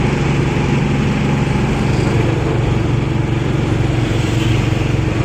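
Inside a moving truck's cab: the engine runs steadily at cruising speed with road and wind noise underneath.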